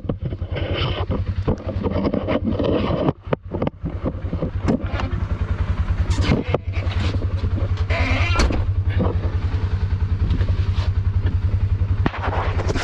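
Polaris Ranger 570 side-by-side's single-cylinder engine running steadily as it drives with a heavy load of aggregate in the bed. Frequent knocks and rattles come from the vehicle going over bumps.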